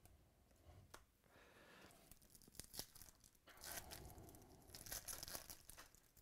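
Faint rustling and crinkling of a foil trading-card pack wrapper being torn open, with light clicks of cards being handled. The rustle is loudest from about two seconds in until near the end.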